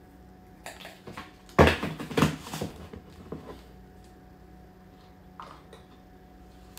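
Hard plastic knocks and clatter as protein powder is scooped into a plastic blender cup, with two sharp knocks about one and a half and two seconds in and a run of lighter clicks after them. A few faint clicks follow as the lid is twisted onto the cup.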